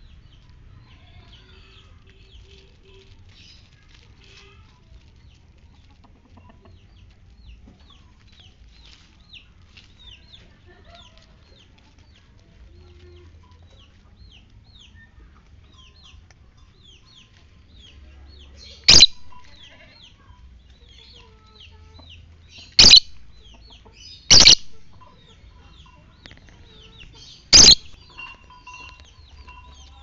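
Birds twittering with many rapid, faint chirps, broken in the second half by four loud, sharp, high calls, two of them close together.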